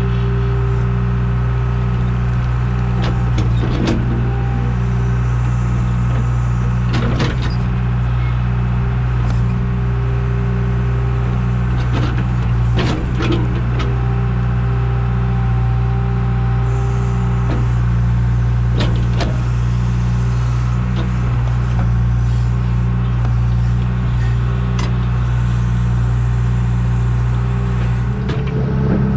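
Backhoe loader's diesel engine running steadily with a regular pulse in its note, with a few sharp knocks scattered through as it works. The engine note shifts near the end.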